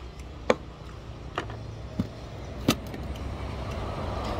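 Four sharp clicks and knocks of eating and tableware as a person drinks from a bowl and sets it down on the table, over a steady low background rumble.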